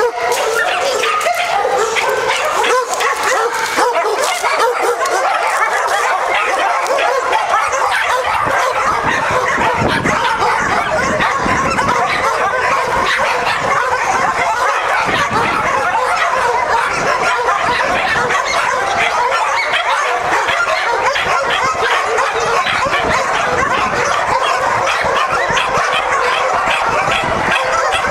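Many kennelled dogs barking and yelping over one another, continuously and without a pause.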